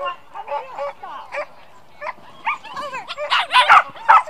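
A small dog barking in short, repeated yaps while running an agility course. The barks are sparse at first, then come thick and loud from about three seconds in.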